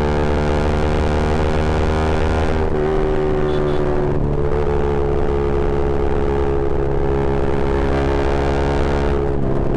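Yamaha R15 V3's single-cylinder engine running through an Akrapovic M1 exhaust at steady revs. The revs sag slightly about three seconds in and recover a second or so later, with another brief lift near the end.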